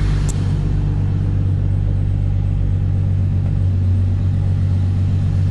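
Holden VY Commodore engine idling steadily, just started and running on a newly fitted manual-transmission ECU that has been linked to the body control module.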